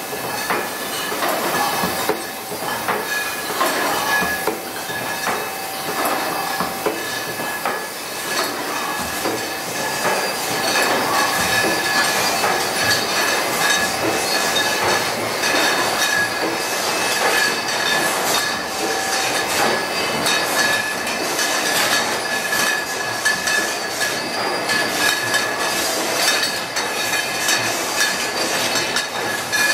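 Wine bottling line running: glass wine bottles clinking and rattling against each other as they ride a steel conveyor, over a steady high-pitched machine whine.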